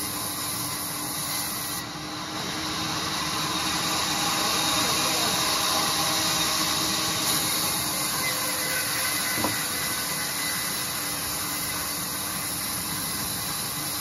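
Band saw running and ripping a long teak plank as it is fed through by hand: a steady hiss of blade and sawdust, a little louder a few seconds in, with a single sharp click about nine and a half seconds in.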